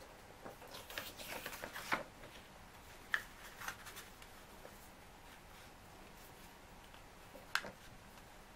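Sheet of A4 printer paper rustling and crackling as it is folded and creased by hand, with a run of rustles about a second in and short sharp crackles near three seconds and again near the end.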